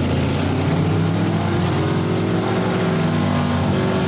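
Demolition derby cars' engines running loud together, pitch rising and falling as they rev.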